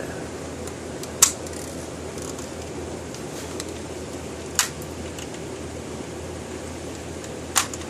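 Steady hum of a running fan, with three sharp clicks of a hard plastic toy being handled: about a second in, midway, and near the end.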